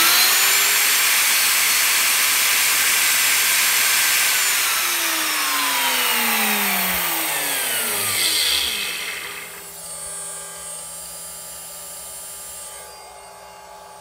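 Bosch 1617 router switched on, its whine rising as it spins up, then running loud for about four seconds before it is switched off and coasts down, falling in pitch over about five seconds. Under it, a water-cooled CNC spindle runs at 24,000 rpm as a quieter steady whine.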